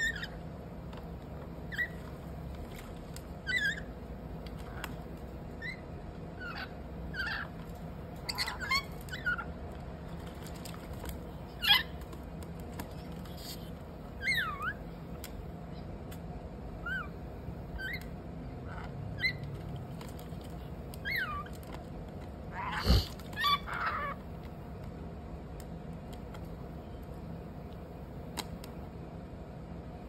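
Rainbow lorikeets giving short chirping calls that bend up and down in pitch, one every second or so, with a louder cluster of calls and a sharp knock about three quarters of the way through, after which the calls stop.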